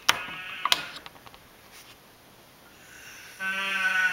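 A man snoring with a bleating, sheep-like sound: one loud, short, steady-pitched snore near the end, after a rising breath. Two sharp clicks near the start.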